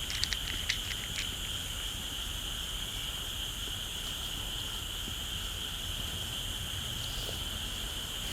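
Steady high-pitched chirring of a chorus of small calling animals, with a few short clicks in the first second or so.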